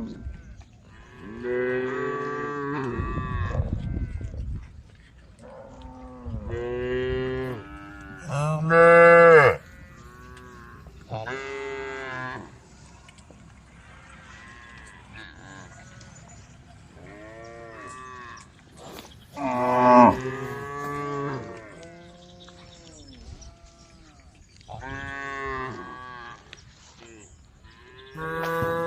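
A herd of cows mooing, one long call after another, about eight in all from several animals, some overlapping. The loudest come about a third of the way in and again past the middle. A short low rumble comes a few seconds in.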